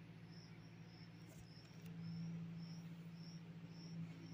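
A cricket chirping steadily, about two chirps a second, over a steady low hum that gets louder about two seconds in. A couple of faint clicks from a spoon stirring spice powder in a steel bowl.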